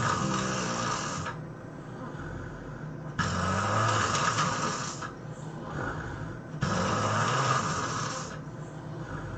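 A person snoring loudly: three snores at an even pace, about every three and a half seconds, each one and a half to two seconds long, with quieter breaths between.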